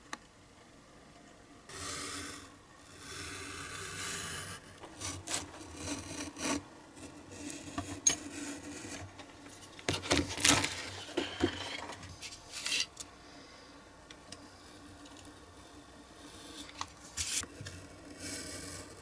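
Sheets of printed card rubbed and slid across a cutting mat, a long run of rasping scrapes. Near the end, a utility knife drawn in short strokes along a metal ruler, scoring the card.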